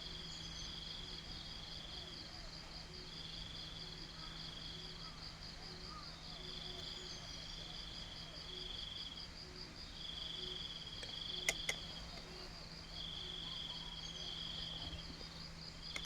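Insects chirring, crickets among them: a steady fast high trill with a second insect's chirping phrases, one to two seconds long, repeating every few seconds. A steady low hum runs beneath, and two sharp clicks come a little past the middle.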